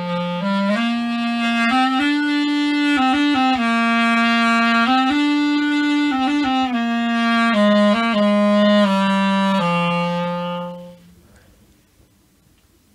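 Solo clarinet playing a slow melody of long held notes that step up and down, then stopping near the end.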